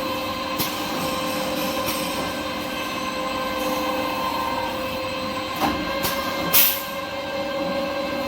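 Kitchen towel paper converting machinery running steadily with a constant whine of several tones, with a few short sharp clacks, the loudest about six and a half seconds in.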